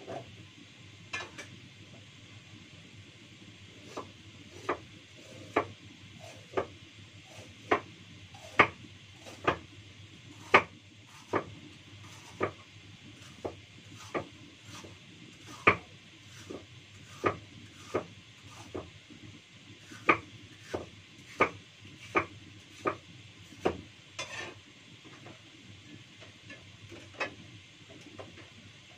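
Kitchen knife slicing bitter gourd on a cutting board: a run of sharp knocks of the blade striking the board, a little under one a second, starting a few seconds in and stopping near the end.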